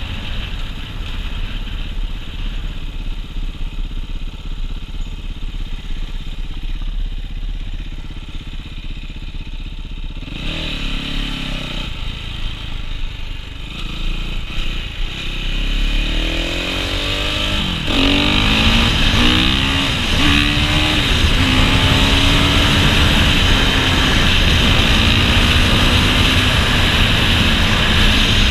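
Dirt bike engine heard from the rider's position. It runs at low revs at first, then revs up from about ten seconds in with several rising sweeps in pitch as it goes up through the gears. It is louder and steadier at speed for the last ten seconds.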